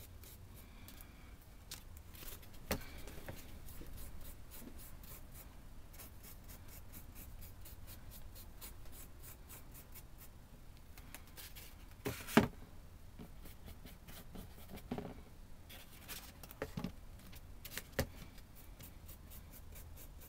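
Paintbrush dry-brushing over the raised hot-glue texture of a diorama piece: quick scratchy strokes of the bristles, with a few sharper knocks, the loudest about twelve seconds in.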